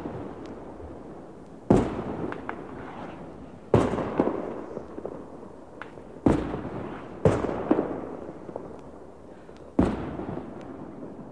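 Fireworks going off: five loud bangs at uneven intervals, each trailing off in a long rumble, with smaller cracks between them.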